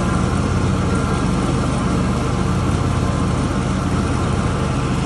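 Zero-turn riding mower's engine running steadily with a constant drone while the mower cuts through tall grass.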